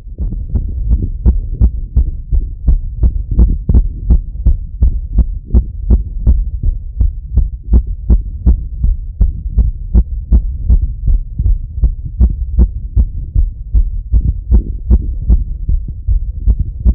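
A man's heart beating fast, heard through a Littmann stethoscope chest piece: quick, evenly spaced thumps with a low rumble between them. This is a racing pulse raised by running.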